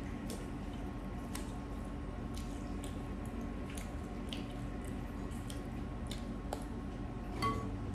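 Wet, squishy sounds of soupy noodles being stirred and lifted with a fork and spoon in a glass bowl, mixed with close-miked chewing, with many small scattered clicks. A brief clink of utensil on glass about seven and a half seconds in is the loudest moment.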